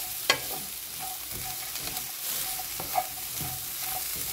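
Dried anchovies, walnuts, garlic and shishito peppers sizzling in a hot pan as they are stir-fried with a wooden spatula, with two sharp knocks, about a quarter second in and about three seconds in.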